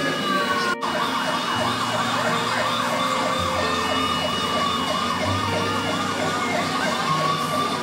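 Emergency-vehicle siren in a fast yelp, sweeping up and down about three times a second, with a slower wail at the start and again near the end. The sound cuts out for an instant just under a second in.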